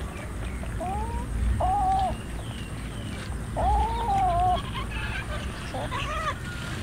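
Cats meowing: about five short calls that rise and fall in pitch, one after another, the longest lasting about a second near the middle.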